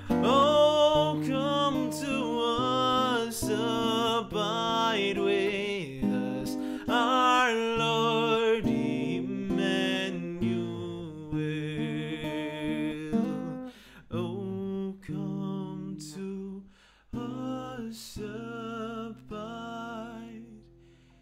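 A man singing over a strummed acoustic guitar, his voice wavering on long notes. The music grows quieter over the second half and dies away near the end.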